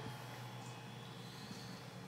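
Faint steady hum and hiss with no distinct event: room tone.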